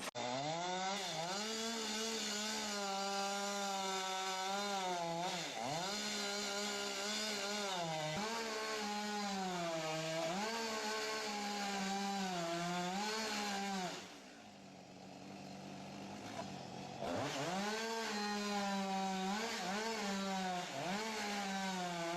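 Chainsaw engine running at high revs, its pitch dipping and recovering again and again as it cuts. About two-thirds of the way through it drops back to a low idle for about three seconds, then revs up and cuts again.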